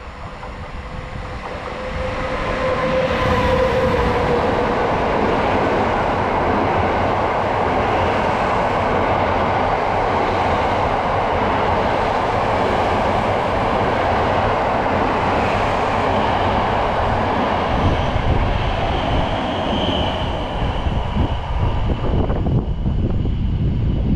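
A long passenger train hauled by a Pesa Gama (EU160) electric locomotive runs past at speed, and its 13 coaches' wheels make a steady rumble and clatter on the rails. The noise builds over the first few seconds as the locomotive arrives, then holds steady while the coaches go by.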